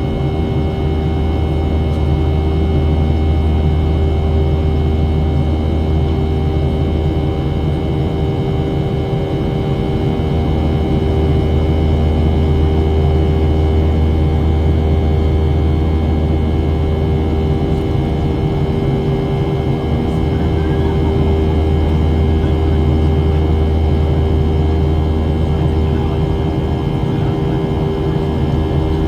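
Steady cabin noise of a Boeing 737-700 climbing after takeoff: its CFM56-7B turbofan engines and the rushing air, heard from inside the cabin, with a constant low hum and several steady whining tones.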